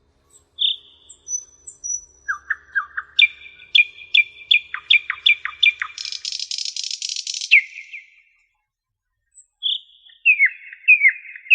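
Bird song: a run of short chirps and quick falling whistles, building into a dense buzzy trill about six seconds in. A second-long gap follows, then the chirping starts again.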